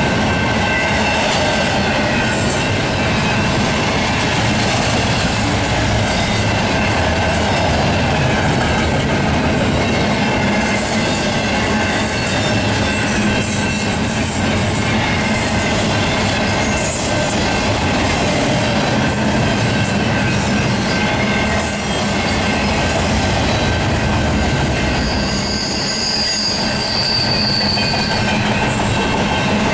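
BNSF double-stack intermodal freight cars rolling past at close range: a steady, loud rumble and clatter of wheels on rail. A thin high wheel squeal rises for a few seconds near the end.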